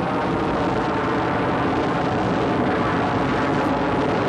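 Space shuttle rocket engines firing: a loud, steady, rumbling noise that swells slightly in the first moment and then holds level.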